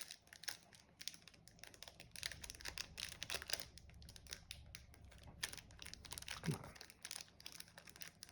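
Plastic wrapping on a trading-card mega box and its packs crinkling and tearing as it is opened, in many small irregular crackles.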